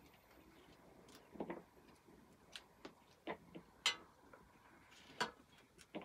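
Irregular light clicks and taps of a kitchen knife cutting a mango over a plastic bowl, about seven in all, the sharpest about four seconds in.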